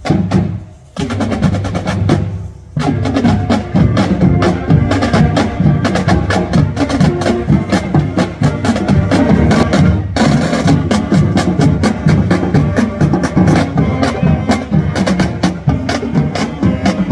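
High school marching band playing one of the armed forces' service songs: snare drums tap a quick, steady beat under the melody. After a couple of short breaks in the first three seconds, it plays on without stopping.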